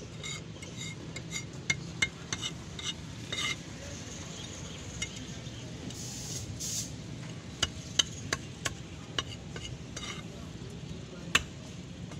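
Large knife cutting and chopping fish on a thick wooden chopping block: irregular sharp knocks of the blade striking the wood, with a brief scraping sound about six seconds in.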